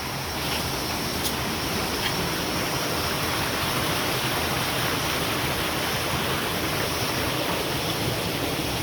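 River water rushing steadily over rocks, a constant full rushing noise.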